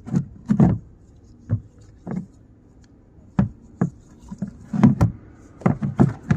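Old cartridge oil filter being taken out of its housing by hand: a series of irregular knocks, clicks and rubbing as the filter and housing parts are handled.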